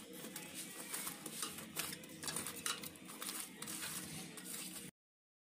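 Thin metal rod scraping and clinking through hot embers and ash in a wood-fire stove as jackfruit seeds are turned to roast in the coals: a stream of short scratches and light metallic clicks. The sound cuts off abruptly shortly before the end.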